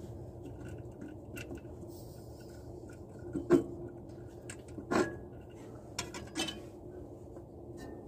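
Hand wrench clinking and knocking against metal bolts and fittings on a tractor engine, a few sharp strikes with the loudest two about three and a half and five seconds in, over a steady low hum.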